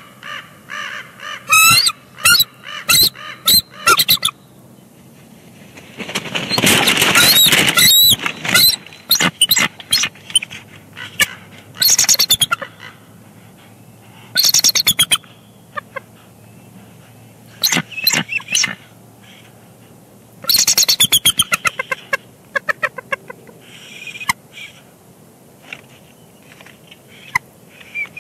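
Pair of bald eagles calling back and forth at the nest in runs of rapid, high, stuttering chatter. A loud noisy rush about six seconds in, with calls over it, comes as the second eagle arrives on the nest for a shift change.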